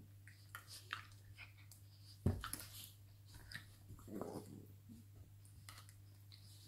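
Two Italian greyhounds play-fighting: faint scattered snaps and clicks of jaws and teeth, with rustling on the bed. A single thump a little over two seconds in is the loudest sound, and a short low rumble follows about four seconds in.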